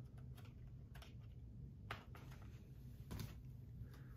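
A few faint, sparse clicks and taps from handling a Blu-ray SteelBook case and its discs, about one a second, over a low room hum.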